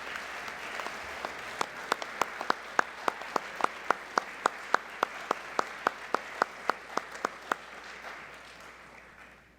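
Audience applauding, with one set of sharp claps close by standing out in a steady rhythm of about three or four a second from a second or so in. The applause fades out near the end.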